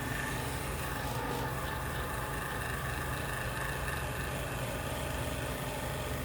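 Woodworking shop machine running steadily with a constant low hum and even noise, no change in speed.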